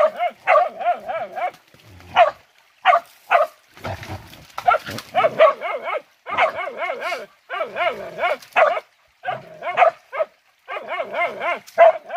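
Hunting dog barking and yelping in rapid runs of high, quavering calls, with short pauses between the runs.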